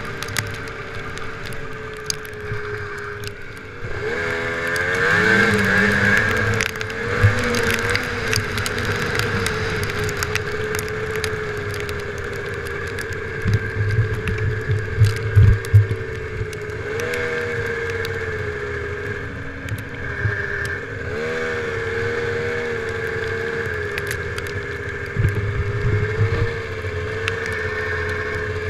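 Snowmobile engine running at trail speed, its pitch rising as the throttle opens about four seconds in and again twice later on. A cluster of loud knocks and rattles comes about halfway through.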